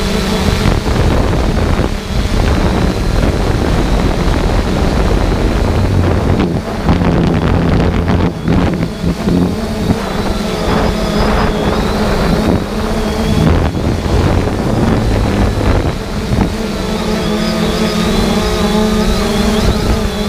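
Multirotor drone's motors and propellers buzzing steadily, the pitch wavering at times as it manoeuvres, with wind rushing over the microphone.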